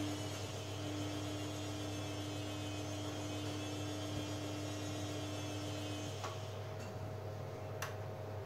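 Beko washing machine humming steadily near the end of its cycle. The hum cuts off about six seconds in, followed by a few faint clicks.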